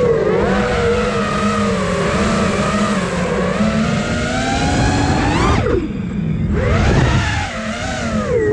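Five-inch FPV quadcopter's brushless motors and propellers whining, the pitch rising and falling with the throttle over a rushing noise. About five and a half seconds in, the whine climbs sharply and then drops away for most of a second before winding back up.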